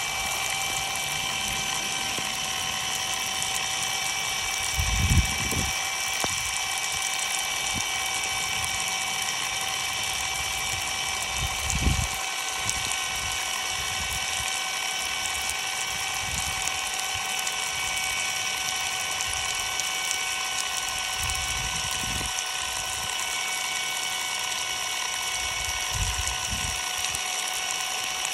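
A small electric motor whines steadily under a continuous hiss of spraying water, with a few dull low thumps, the strongest about five seconds in and again near twelve seconds.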